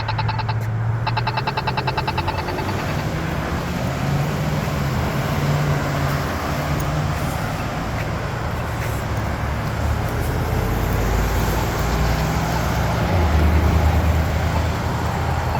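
Polara iNS accessible pedestrian push button giving its rapid ticking walk tone, the sign that the walk signal is on. The ticking breaks briefly about half a second in and stops about two and a half seconds in. After that, road traffic runs, with car engines passing, loudest near the end.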